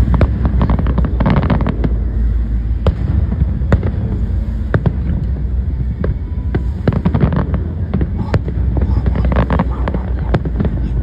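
Fireworks display: aerial shells bursting in a rapid string of sharp bangs, with bursts of crackling among them, over a steady low rumble.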